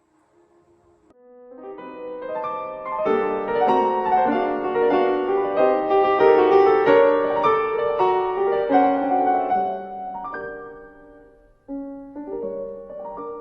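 Background piano music: quiet at first, swelling into a full, busy passage, then thinning to a few sparse notes near the end.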